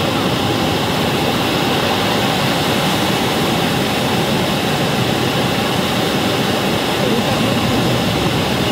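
Steady roar of the Moconá falls mixed with wind rushing over the microphone, heard from a moving inflatable boat close beside the falling water.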